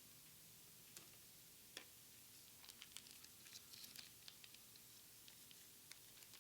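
Faint clicks and crinkles of gloved hands handling Pokémon trading cards and foil booster-pack wrappers, a scattered few at first, then a quick cluster of small crinkly ticks in the middle.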